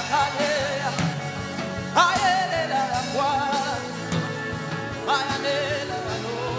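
Background worship music with a voice singing long, wavering held notes, new phrases starting about two and five seconds in, over a steady instrumental accompaniment.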